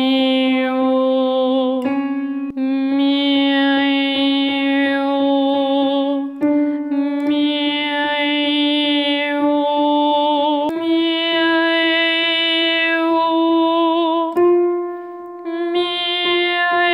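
A trained female voice sings a vocal exercise in long held notes on the connected syllables "mi-a-e-yo", each note about four seconds long, stepping up in pitch from one note to the next. It is a maschera (mask-resonance) drill: the vowels change while the forward placement is kept.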